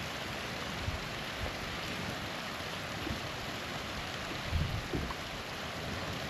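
Small waterfall rushing steadily, with a few soft low thumps a little after the middle.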